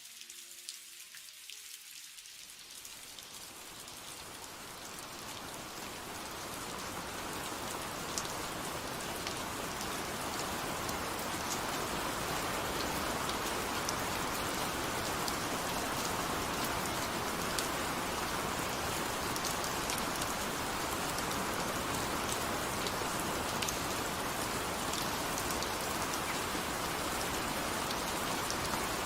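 Steady rain falling, with scattered individual drops ticking on a surface. It fades in over the first ten seconds or so, then holds steady.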